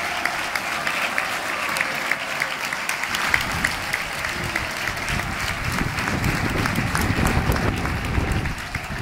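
Football stadium crowd applauding, with sharp individual claps close by over the spread-out clapping of the stands. A low rumble comes in about three seconds in and fades near the end.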